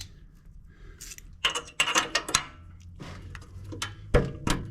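Metal hand tools and small engine parts clicking and clinking as a rocker arm stud is worked out of a small engine's cylinder head, with a quick run of clinks in the middle and two sharp metal knocks near the end.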